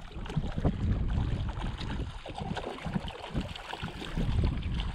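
Hooked brown trout thrashing at the surface, throwing irregular splashes over lapping water, with a low wind rumble on the microphone.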